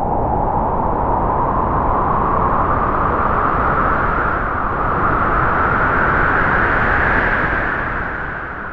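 A long gust of wind: a rushing noise with a whistling tone that slowly rises in pitch, then dies away near the end.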